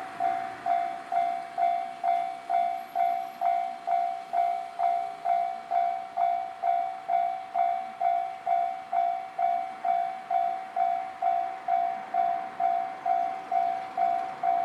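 Japanese railway level-crossing warning alarm ringing steadily, a little over two even strikes a second, each a single ringing tone that fades before the next. It signals that a train is approaching and the crossing is closed.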